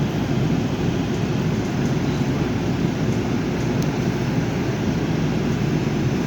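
Steady low rumble inside an LA Metro A Line light-rail car, with no clear change in pitch or level.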